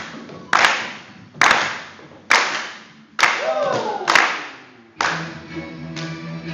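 Hand claps on a steady beat, about one a second, some doubled, each echoing off the hard walls. A short falling vocal sound comes about three and a half seconds in, and about five seconds in music with held string notes starts.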